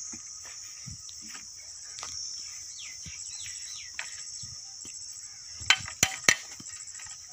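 Crickets chirring steadily, with a few short descending bird calls about three seconds in. Near the end come three sharp knocks in quick succession, from the metal hand auger being handled as its bit is pulled up full of soil.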